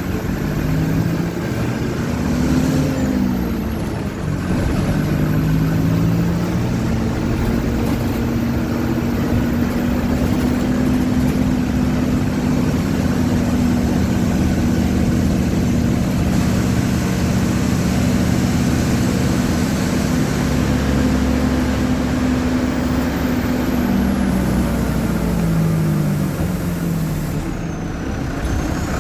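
Mercedes-Benz OF-1722M bus's four-cylinder turbodiesel engine pulling loudly, its pitch climbing in steps through the gears over the first several seconds. It then holds steady revs for most of the time and falls in pitch near the end as the bus eases off.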